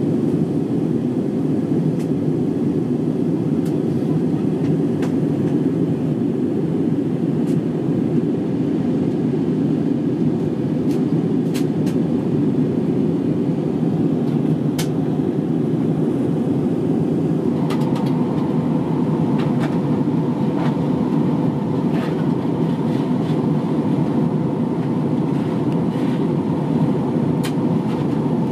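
Steady cabin roar of an Airbus A321 airliner in flight after take-off, engine and airflow noise heard from inside the cabin. A faint steady higher tone joins about two-thirds of the way through, and there are a few faint clicks.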